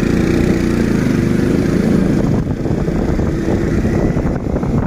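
Motorcycle engine running steadily under way, heard from on board the moving bike.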